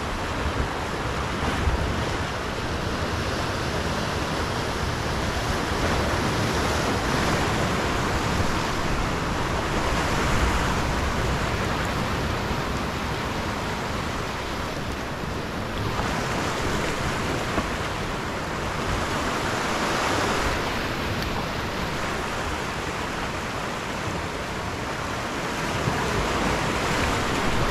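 Ocean surf washing over a rocky shore, a steady rush of water that swells and eases, loudest about ten and twenty seconds in.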